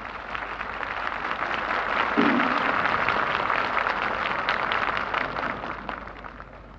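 Crowd applauding: the clapping swells over the first couple of seconds, holds, then dies away near the end.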